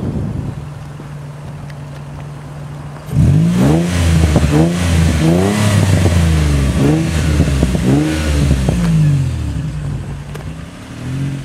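Nissan 350Z's 3.5-litre V6 running through an aftermarket XO2 exhaust: idling at first, then from about three seconds in revved hard in a quick series of blips, the pitch rising and falling over and over, before settling back toward idle near the end.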